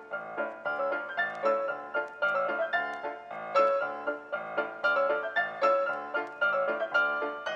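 Instrumental piano music: a quick melody of separately struck notes, each fading after it is played.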